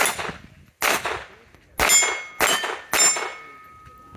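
.22 rimfire pistol firing five quick shots at steel targets, each hit followed by the clang of a steel plate ringing; the last plate keeps ringing after the final shot, about three seconds in.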